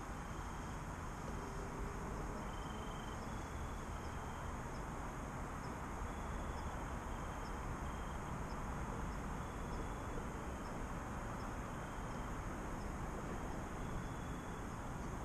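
Quiet woodland ambience: a steady hiss with faint high chirps repeating about once a second and a few short, high whistled notes, typical of insects and small birds.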